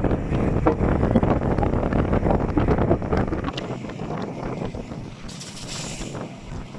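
Wind buffeting the microphone with a heavy, irregular rumble that eases off about three and a half seconds in. A brief hiss follows a little after five seconds.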